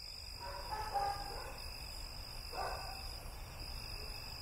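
Quiet night-time outdoor ambience: a steady high insect chirring with faint distant animal calls, about a second in and again near the middle.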